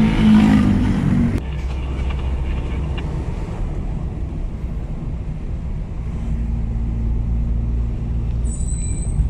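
Steady low drone of a road vehicle's engine and road noise while travelling. There is an abrupt shift in the sound about a second and a half in, and a brief faint high tone near the end.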